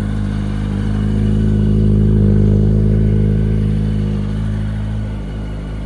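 Yamaha R1's inline-four engine idling while warming up, its level swelling a little about two seconds in and then easing back.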